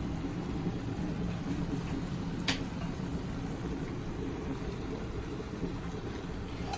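Tomato, onion and spice mixture simmering in a pan on the stove, a steady low bubbling over a steady low hum, with one sharp click about two and a half seconds in.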